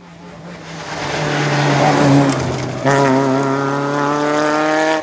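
Rally car engine at high revs on a gravel stage, growing louder as the car arrives, with a rush of gravel and tyre noise. Nearly three seconds in, the engine note jumps higher and runs on steady and loud.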